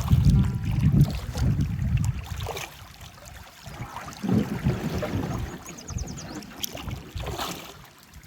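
Kayak paddle strokes swishing through the water, one about every two seconds, with a low rumble of wind on the microphone in the first couple of seconds.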